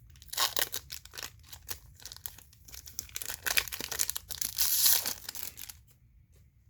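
Foil wrapper of a Pokémon booster pack crinkling and tearing as it is ripped open by hand without scissors; the rustling stops about a second before the end.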